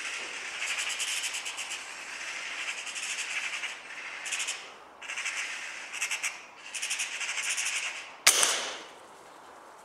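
Bursts of fast, harsh rattling, then a single sharp gunshot-like crack about eight seconds in that dies away over about half a second.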